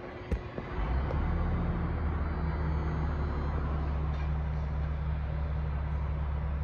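A vehicle engine running with a steady low drone, starting abruptly a little under a second in, just after a sharp click.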